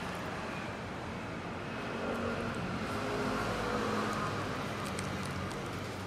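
Steady street traffic noise with faint indistinct background voices, and a few light clicks about five seconds in.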